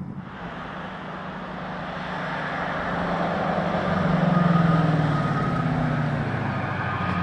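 Ford Mustang GTD's supercharged 5.2-litre V8 running hard at speed, its steady engine note growing louder as the car approaches and peaking about four and a half seconds in.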